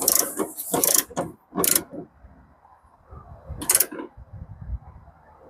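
Click-type torque wrench with a 3/8-inch drive ratcheting as a nut is tightened: a quick run of sharp clicks in the first two seconds and another single click about three and a half seconds in.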